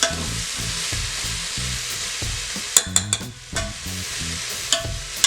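Sliced onions, carrots and peppers sizzling in oil in an Instant Pot's inner pot on the sauté setting, cooking down until the onions turn translucent. A few sharp clicks of a utensil against the pot about three seconds in and again near the end, as the vegetables are stirred.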